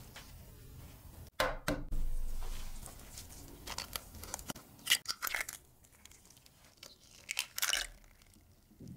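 Raw egg cracked over a glass bowl: sharp taps of the shell about a second and a half in, then crunching and crackling as the shell is broken and pulled apart.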